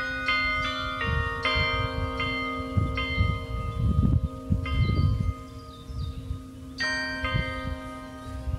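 Carillon bells playing a slow melody, each struck note ringing on and overlapping the next. The strikes stop around the middle and the tones die away, then a new group of notes comes in about seven seconds in. Low gusty rumbling of wind on the microphone runs underneath, loudest in the middle.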